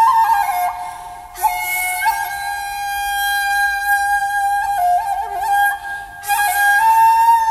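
Slow instrumental music: a single flute-like melody of long held notes with small slides between them, briefly quieter about a second in and again near six seconds.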